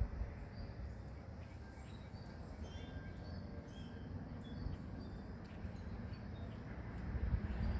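Wind rumbling on the microphone, with birds chirping in short, high notes scattered through it.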